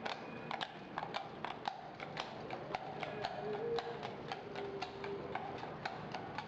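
Horse's hooves clip-clopping at a walk on a hard street, sharp knocks about three or four a second, often falling in quick pairs.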